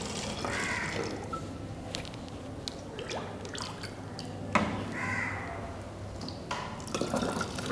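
Water poured from a steel tumbler into a plastic bottle, trickling, splashing and dripping, with the tumbler dipped into a plastic bucket of water for more partway through.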